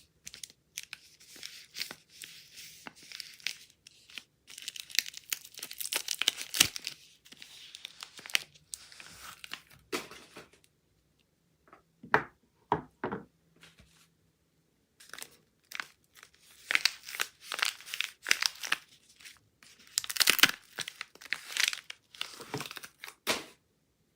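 Soap wrapping being torn open and crinkled by hand, in two long stretches of crisp rustling with a few short sharp taps and a brief lull between them.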